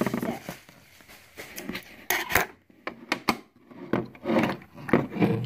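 Hard plastic toy pieces and cardboard packaging being handled during unboxing: scattered knocks, clicks and rubbing, quiet at first, then several short clusters of clatter from about two seconds in.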